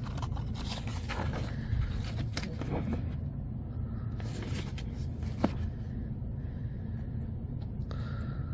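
Glossy magazine pages being handled and turned: crisp paper rustles in the first few seconds and again around five seconds in, with one sharp snap of paper. A steady low hum runs underneath.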